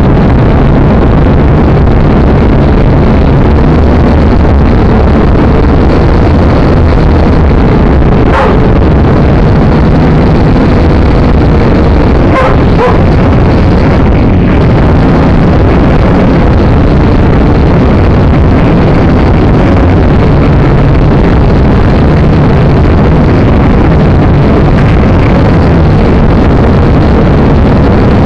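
Small camera drone's propellers and motors, picked up by its own onboard microphone: a very loud, steady whirring buzz with an even hum. A few brief sharp sounds break in around eight seconds and twelve to thirteen seconds in.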